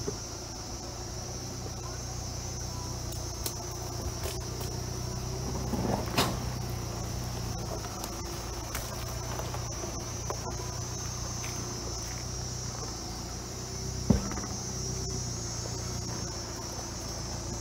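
LDV T60 ute's diesel engine running low and steady at crawling speed, heard from inside the cab, with two sharp knocks as the truck jolts over ruts, about six and fourteen seconds in. A steady high insect buzz sits over it.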